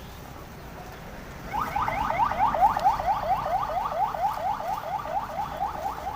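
A siren-like tone rising in quick repeated sweeps, about four or five a second, starting about a second and a half in and running on steadily.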